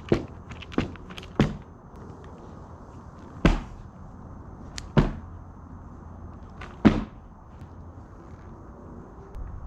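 Practice board smacking down onto a mat over gravel as tricks are landed: six sharp smacks at irregular intervals, three close together at the start and the loudest about seven seconds in.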